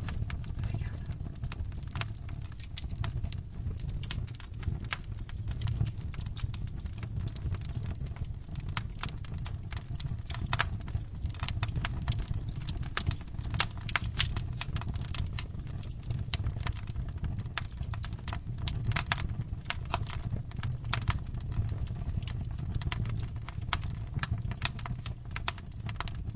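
Fire crackling: many irregular sharp pops and snaps over a steady low rumble of the flames.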